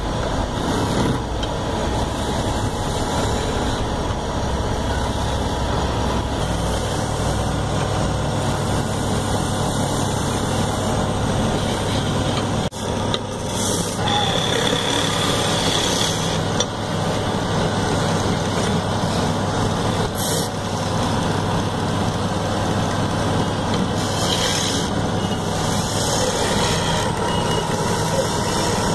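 Wood lathe running, with a hand-held chisel cutting into the spinning wooden sofa leg: a steady mix of machine hum and wood being scraped. The sound dips briefly about halfway through.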